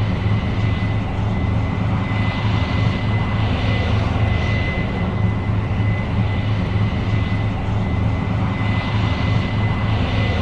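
Case IH 8230 Axial-Flow combine running steadily under harvesting load: a deep, even diesel engine drone with a steady high whine over it.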